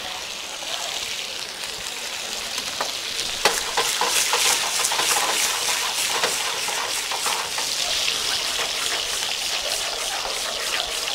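Shrimp and baby corn sizzling in olive oil and butter in two frying pans, a steady crackling hiss with a few sharp clicks; the sizzle gets louder about three and a half seconds in.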